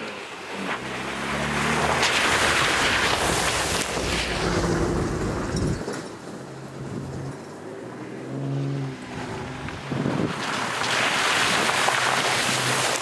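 Toyota pickup truck's engine revving in bursts as it drives through a muddy puddle, with the rush of water and mud splashing. The splashing is loudest near the end as the truck passes close by.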